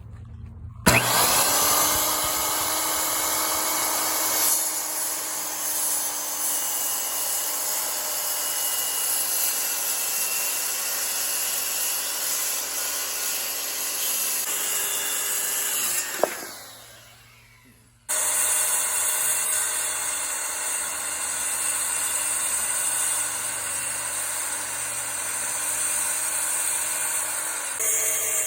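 Electric power tool, a saw by its sound, starting up and running steadily. It is switched off with a click and winds down over about two seconds, then starts again and runs on.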